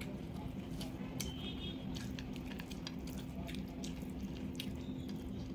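Close-miked eating sounds from eating rice and vegetables by hand: scattered small wet clicks and squishes, over a steady low hum.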